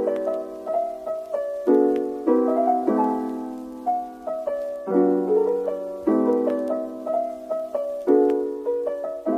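Background piano music: slow chords struck about once every second or two, each ringing and fading.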